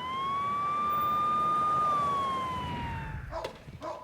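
A police siren giving one wail, rising in pitch, holding, then falling away and fading out about three seconds in.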